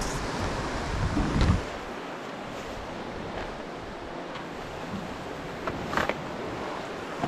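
Sea swell washing against the rocks below. A low rumble comes about a second in, and a sharp scuff of a boot on the rock comes about six seconds in, as the climber steps down.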